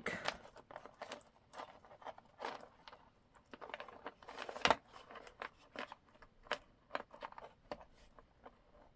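Small beads clicking against each other as they are pushed tight along a strung necklace wire, with light, irregular handling clicks and one sharper click about halfway through.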